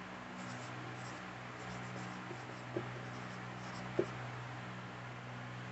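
Marker pen writing on a whiteboard, faint strokes over a steady low hum, with two sharp taps of the pen tip on the board, one just under three seconds in and one about four seconds in.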